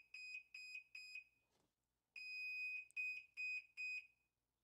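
Whirlpool Cabrio top-load washer's control panel beeping: a long, high beep followed by a quick run of about four short beeps, twice.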